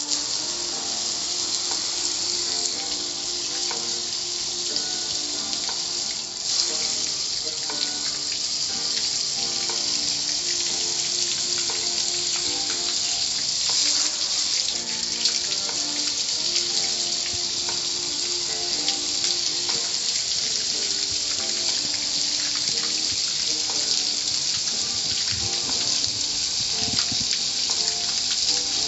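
Car wash water spray: a loud, steady hiss of jetting water.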